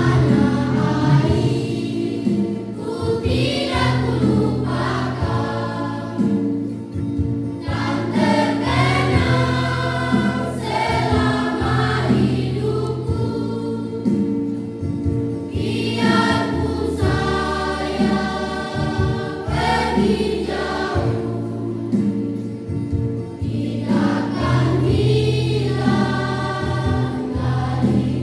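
Junior high school choir singing in phrases, with steady low accompaniment notes held underneath.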